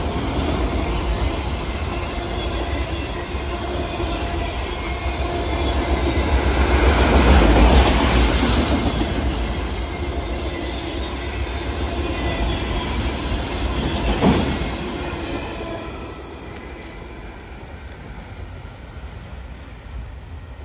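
Freight cars rolling past on the rails: a steady heavy rumble and clatter of steel wheels. It swells about seven seconds in, there is one sharp clank about fourteen seconds in, and then it fades as the end of the train moves away.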